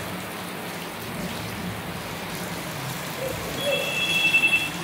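Heavy rain falling steadily on a paved yard full of puddles, an even hiss. Near the end a high, steady tone sounds for about a second.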